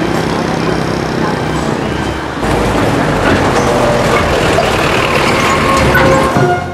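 Train running noise heard from aboard an old locomotive-hauled carriage, a dense steady rumble of the train on the track, with a jump to a louder level about two and a half seconds in.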